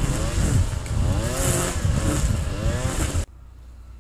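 An engine running, its pitch repeatedly rising and falling over a heavy rumble and hiss; it cuts off abruptly about three seconds in, leaving a faint low hum.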